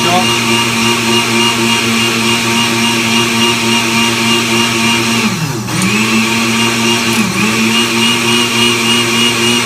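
Countertop blender running steadily with a motor whine, blending a jug of water and scraped coralline algae. The whine dips in pitch briefly about halfway through and again a couple of seconds later.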